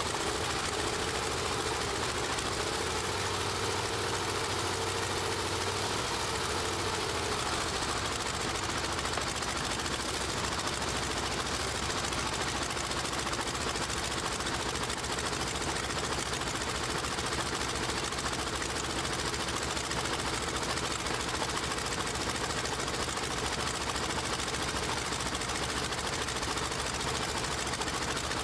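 Radial aircraft engine running on a test stand with its propeller turning, a fast, steady firing beat. A steadier drone heard over it for the first six or seven seconds then fades.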